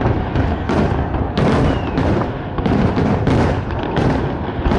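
Aerial fireworks bursting in a fast, irregular series of loud bangs, about eight in under five seconds, over a continuous low rumble of echoing booms.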